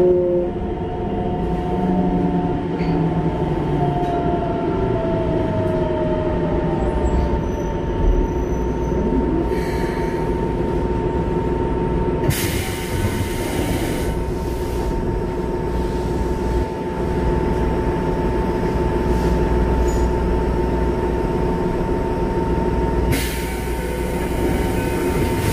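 Running sound inside a Keikyu 1500-series electric train car with Mitsubishi GTO-VVVF control: a steady whine from the inverter and traction motors over wheel and rail rumble. Tones fall in pitch in the first few seconds, and hissing noise swells briefly about halfway through and again near the end.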